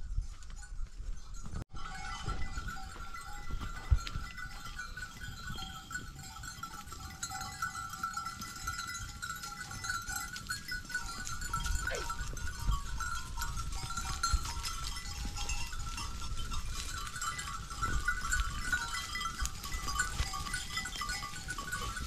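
Mixed flock of sheep and goats grazing, with scattered animal calls over a low rumble and a steady high ringing tone. A single rising-and-falling call sounds about twelve seconds in.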